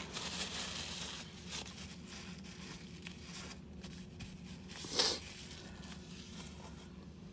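Paper crinkling and tearing, busiest in the first second or so, with one short sharp sound about five seconds in.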